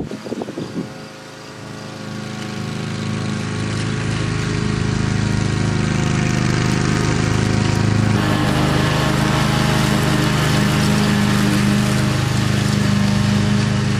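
Riding lawn mower's engine running steadily, growing louder over the first few seconds as the mower approaches, with a few low thumps in the first second.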